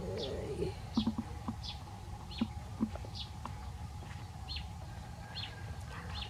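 A bird chirping, short high chirps repeating steadily about every three-quarters of a second, over a faint steady hum.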